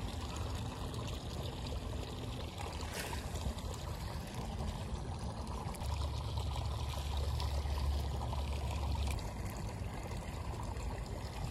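Steady rush of flowing water pouring into a pond, with a low rumble for a few seconds in the middle.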